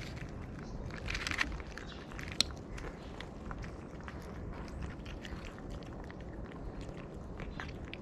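Two cats eating wet food and dry kibble from a plastic tray: wet chewing and crunching with many short clicks and smacks. There is a denser crunchy patch about a second in and a single sharp click a little after two seconds in.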